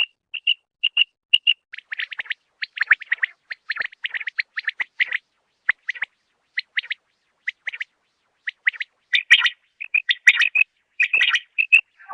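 Quail calling: short, sharp chirping notes repeated in quick clusters, with busier, overlapping calls in the last few seconds.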